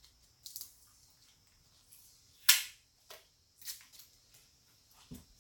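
Tape being ripped off the roll in several short rips to hold the glued trim boards, the loudest about two and a half seconds in, with a soft knock near the end.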